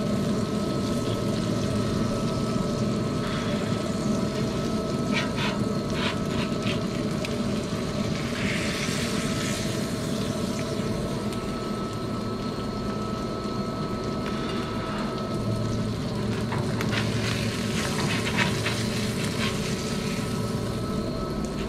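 Fish fillets sizzling in a hot oiled tray on a grill, with scattered clicks of a metal spatula against the tray, over a steady mechanical hum.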